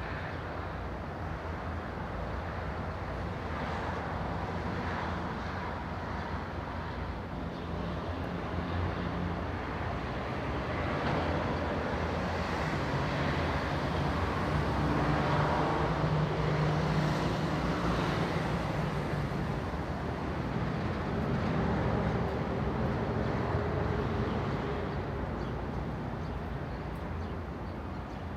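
Daytime residential outdoor ambience: a steady bed of distant traffic, with an engine hum that swells through the middle as a vehicle passes, then fades.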